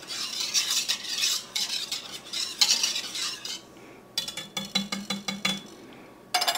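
Wire whisk stirring half-and-half in a stainless steel Instant Pot inner pot, a scratchy swishing with metal scraping for about three and a half seconds. After a short pause comes a run of quick, ringing metallic clinks of whisk against pot.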